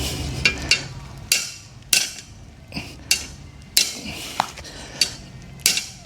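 Repeated sharp knocks with a metallic clink, about ten strikes at an uneven pace: a slasher's metal blade socket being struck to work a wooden handle back out of it.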